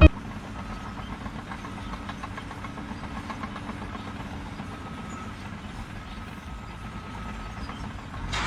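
Heavy machine's engine running steadily, a low rumble with a faint whine above it.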